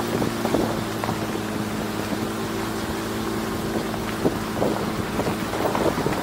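Pickup truck driving along a dirt road: its engine holds a steady hum while the tyres run over loose dirt and gravel, with scattered ticks of small stones. Wind buffets the microphone mounted on the outside of the truck.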